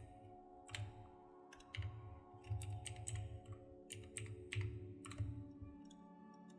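Computer keyboard typing: a run of irregular key clicks that stops shortly before the end. Soft background music with held notes plays underneath.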